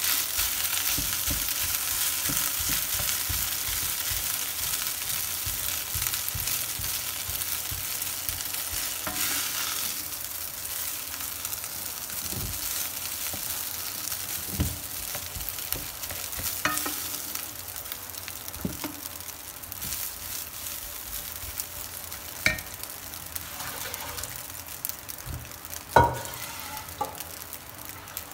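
Cold cooked rice sizzling in hot fat in a non-stick frying pan as it is broken up and stirred with a wooden spatula. The sizzle slowly dies down, and the spatula knocks against the pan now and then, loudest near the end.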